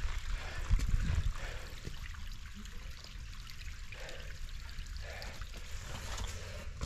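Wind rumbling on a handheld action camera's microphone, with boots scuffing and crunching on loose rock and gravel during a steep scramble. The rumble is strongest in the first second or so.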